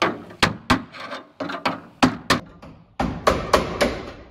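Irregular series of sharp knocks and taps, about a dozen in all, from hands and tools working cable and conduit into a metal breaker panel.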